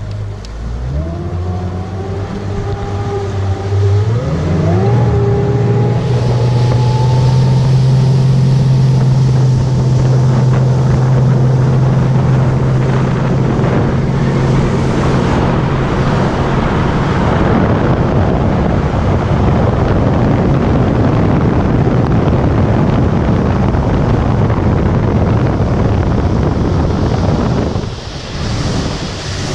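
Boat's outboard motor throttling up out of the channel, its pitch climbing in steps over the first few seconds, then running steady at speed. A loud rush of wind and water over the hull builds and covers most of it, with a short drop in loudness near the end.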